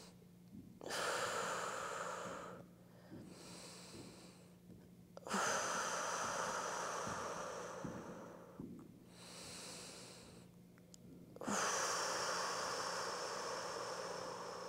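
A woman breathing deeply and audibly while she holds a pilates stretch: three long exhales, each starting suddenly and trailing off over two to three seconds, with softer inhales between them.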